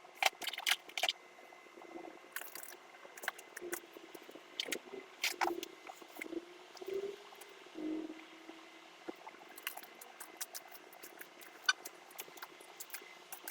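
Irregular clicks, crinkles and rustles, like packaging and parts being handled while a kit is unpacked.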